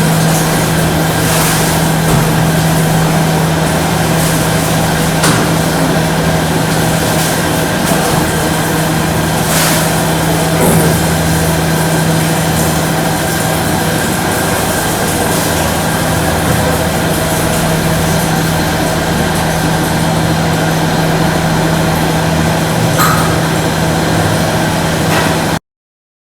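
Instant rice grinder's electric motor running steadily: a constant low hum under a rushing grinding noise, which cuts off suddenly near the end.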